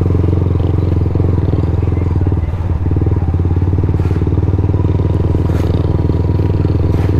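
Motorcycle engine running steadily as it is ridden, a constant low rumble.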